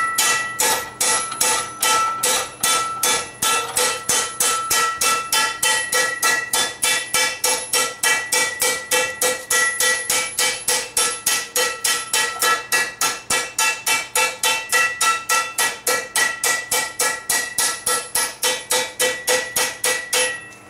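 Hand hammer striking the rim of a cold steel frying pan blank over a swage, about four blows a second, each blow ringing with clear metallic tones. The hammering stops near the end.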